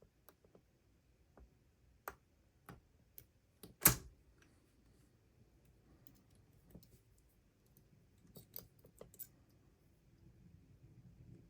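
Small metallic clicks and ticks of a short hook pick and a top-of-keyway turning tool working inside a padlock, scattered and irregular, with one much louder click about four seconds in and a quick cluster of clicks near the end.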